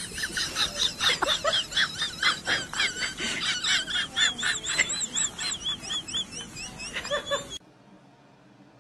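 Rapid, high-pitched animal calls, several a second, some overlapping, cutting off suddenly near the end.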